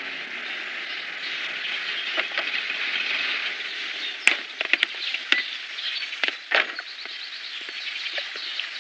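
Steady hiss of background ambience, with a quick run of sharp clicks and knocks about four to five seconds in and a couple of softer knocks after.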